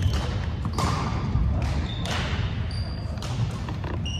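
Four sharp ball impacts, about one a second, each echoing around a large gymnasium, with short high sneaker squeaks on the wooden court between them.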